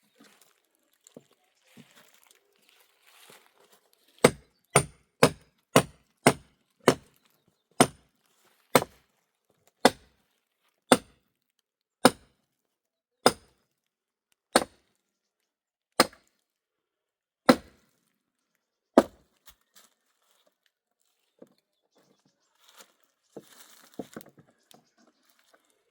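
Axe or hatchet chopping firewood: about sixteen sharp strokes, quick at first and slowing steadily to one every second and a half, each with a brief ring.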